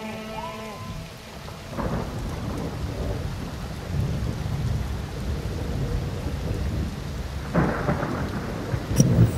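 Rain and thunder: a steady hiss of rain with low rumbles that swell a few times, and a sharp crack near the end.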